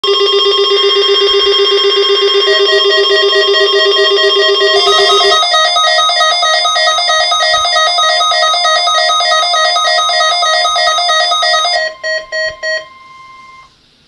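Several NOAA weather radios sounding their alert alarms at once, a loud mix of rapidly pulsing beeps and steady tones at different pitches, set off by a Required Weekly Test broadcast. About twelve seconds in the alarms drop out, leaving a few last beeps and one steady tone that cuts off just before the end.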